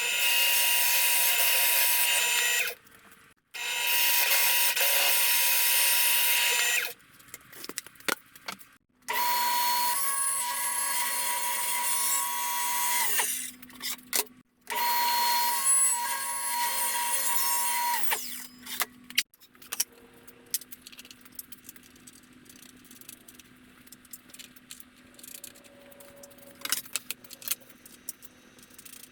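Power drill running in four bursts of a few seconds each, each starting and stopping abruptly with a steady motor whine. In the last third, light handling clicks.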